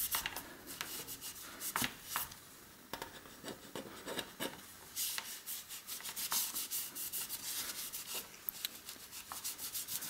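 Cloth wiping the carbon-fibre bottom bracket shell and its drive-side mating surface of a road bike frame in repeated short rubbing strokes, cleaning off dirt and degreaser residue before a bottom bracket is pressed in.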